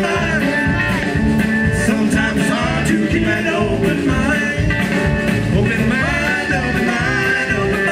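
Band music with a singer over a steady drum beat.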